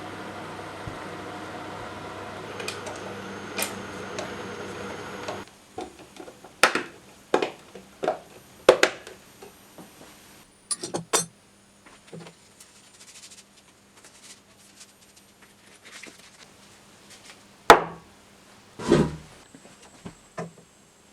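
A steady machine-like running sound for about five seconds that stops abruptly, then a run of sharp knocks and clatters of hard parts and tools being handled on a workbench. The two loudest knocks come near the end.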